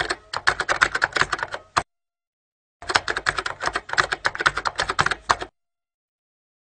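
Typing sound effect: rapid key clicks in two runs, with a pause of about a second between them, stopping suddenly well before the end.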